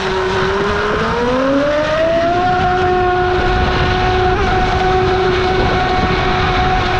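Brushless electric motor of a scale Evinrude XP 300 V8 RC outboard whining, its pitch climbing over about a second and a half as the throttle opens, then holding steady at high speed. Under it is a rush of water and spray from the hull and prop.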